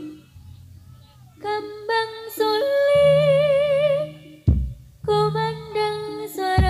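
Jaranan music: a female singer comes in about a second and a half in with a melody sung with wide vibrato, in phrases with short breaks, over low held accompaniment notes. A sharp percussive hit sounds about four and a half seconds in and again near the end.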